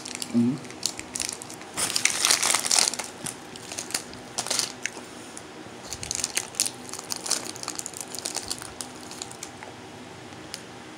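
Crinkling of a matcha KitKat's metallised plastic wrapper as fingers pull it open and peel it off the wafer bar. The crackling comes in irregular bursts, loudest about two seconds in, with more around four and six to seven seconds, then only small crackles near the end.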